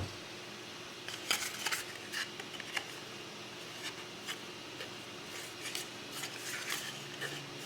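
Light handling of a small cardboard knife box and its packaging: a sharp click at the start, then scattered soft clicks and rubbing sounds, over a faint steady hum.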